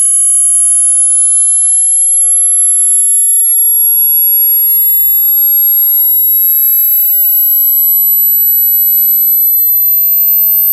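Loud, ear-piercing electronic sine tone, very high-pitched and rising slowly and steadily in pitch, held without a break.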